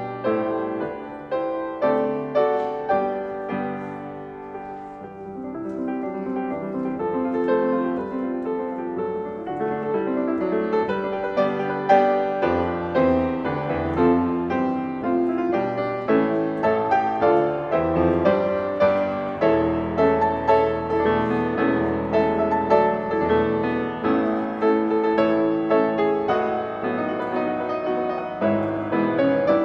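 Solo piano playing a slow classical-style piece. The notes are struck and left to ring away, and deep bass notes are held from a little under halfway through.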